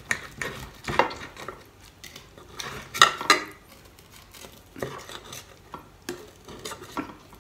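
Knife and metal tongs clicking and scraping against a glass baking dish while cutting through roasted pork spare ribs: scattered clinks, with the loudest cluster about three seconds in.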